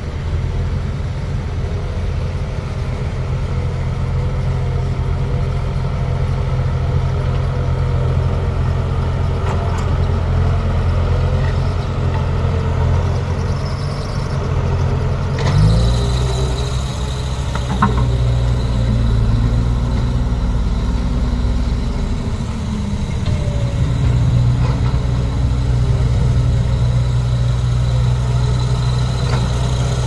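Diesel engine of a CASE tandem-drum road roller running steadily as it works across loose soil, a loud low drone. The sound shifts abruptly about halfway through, then the engine drone carries on.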